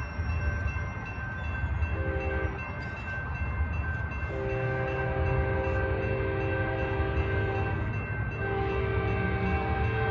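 Horn on the leading cab car of an Altamont Corridor Express commuter train sounding for a grade crossing: a short blast about two seconds in, a long blast, then another long blast starting near the end. Under the horn the train rumbles as it approaches, with the crossing bell ringing steadily.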